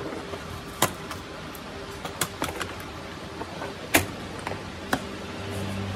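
Sharp plastic clicks and taps as a laptop's opened case and small internal parts are handled, about five at irregular moments, the loudest about four seconds in, over a faint steady hum.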